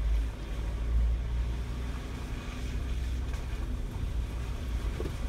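Jeep driving slowly along a muddy, rutted dirt trail, heard from inside the cab: a steady low rumble of the engine and drivetrain that swells slightly about a second in.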